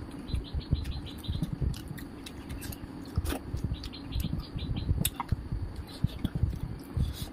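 Close-miked eating sounds: chewing with wet mouth smacks, and fingers mixing rice and curry against a steel plate, making many short soft clicks and thumps. A bird chirps a quick run of short high calls in the background for about a second near the start.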